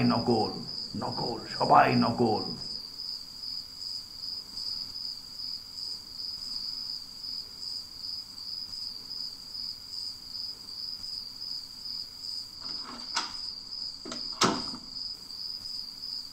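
A cricket chirping in a steady, high, evenly pulsing trill, with two sharp knocks near the end.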